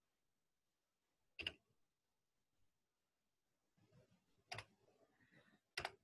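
Three sharp clicks of a computer keyboard and mouse in near silence: one about a second and a half in, then two near the end.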